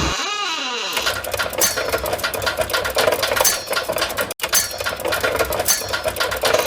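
A novelty sound effect: a short swooping sound, then several seconds of rapid, dense clattering ticks, broken by a momentary gap about four seconds in.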